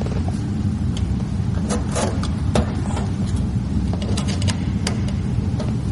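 A steady low rumble throughout, with scattered light clicks and taps as excess camouflage vinyl wrap is trimmed and worked at the edge of a truck door.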